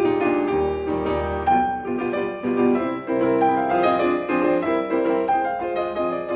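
Piano music: a melody of held notes over a low bass line.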